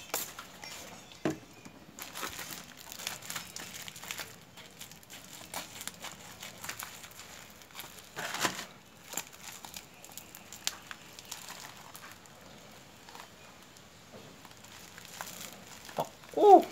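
Plastic packaging crinkling and crackling as it is handled and unwrapped, with irregular rustles and small clicks and a louder crinkle about eight seconds in.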